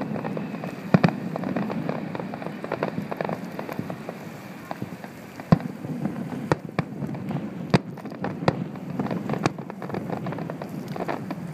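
Aerial fireworks shells bursting: a string of sharp bangs at irregular intervals, about one a second, over continuous crackling from the bursts.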